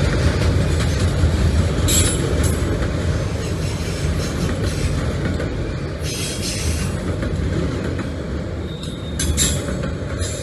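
A freight train of autorack cars rolling past, a steady low rumble of wheels on rail broken several times by brief high wheel squeals. The rumble eases a little as the last car passes near the end.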